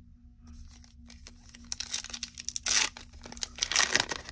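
Foil wrapper of a 2020 Topps Holiday baseball card pack crinkling and being torn open in a few quick rips, the loudest about two and a half seconds in and another run of rips near the end.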